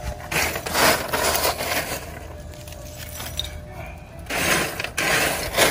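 Charcoal briquettes tipped onto the metal mesh fire tray of a box roaster, clattering in two noisy rushes, one about a second in and another near the end.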